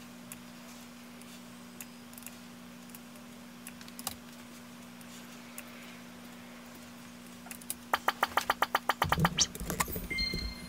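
Sparse light clicks of a computer keyboard and mouse in use over a steady faint hum. About three-quarters of the way through comes a quick, even run of about a dozen clicks, and background music comes in near the end.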